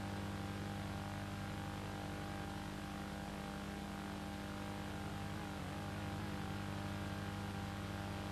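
Steady electrical hum with hiss, as on the blank soundtrack of an old silent film transfer. The hum stays at one pitch and an even level throughout.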